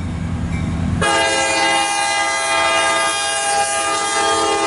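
CSX diesel locomotive's air horn sounding one long, steady chord of several notes, starting abruptly about a second in. Before it the locomotive's diesel engine rumbles low.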